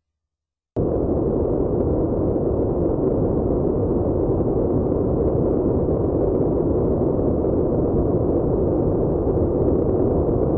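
A steady, dense rumbling noise cuts in abruptly about a second in, after a moment of silence, and holds at an even level.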